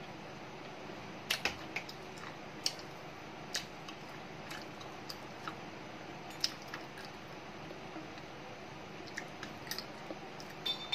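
Slate pencils giving irregular, sharp crunchy clicks, a cluster about a second and a half in and another near the end, over a steady low room hum.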